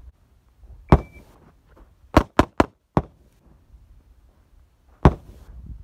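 Six semi-automatic pistol shots: one about a second in, a quick string of four about two seconds in, and a last one near the end.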